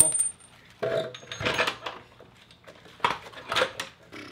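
Steel suspension parts being handled on a concrete floor: a sharp metallic clink with a brief ring at the start, then bursts of clunking and clatter about a second in and again around three seconds in as the lower control arm and knuckle assembly is moved.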